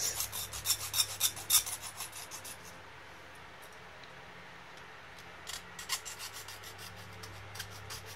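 Small hand file scraping back and forth along the sharp cut edge of a thin tin-can-like metal lantern part, deburring it by hand. Quick strokes, about five a second, for a couple of seconds, a pause, then more strokes from about five and a half seconds in.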